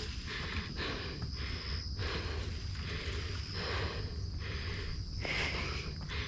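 A person breathing hard through a climb, each loud breath in or out coming about once a second. A steady, thin high-pitched tone sounds throughout.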